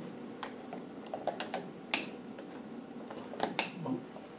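A few scattered light metal clicks and taps from pliers working at a tight roll pin in an LT77 gearbox's selector housing.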